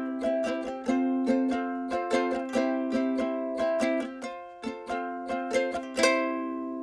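A short musical interlude on a plucked string instrument: a quick run of notes ending in a final chord about six seconds in that is left to ring and die away.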